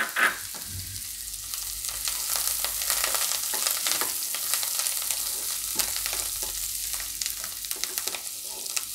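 Chopped carrot, capsicum and green chillies sizzling in hot oil in a pan with a steady hiss and many small crackles, while being stirred.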